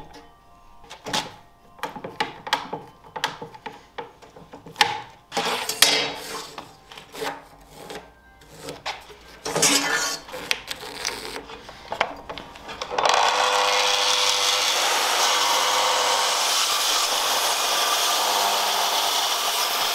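Knocks and clatter of heavy oak timbers being handled, then about 13 seconds in an electric saw starts and cuts steadily through an oak joist.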